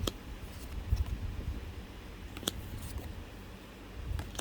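Pokémon trading cards being handled and flipped through: a few sharp clicks as cards snap against each other, with low bumps and rustle of handling.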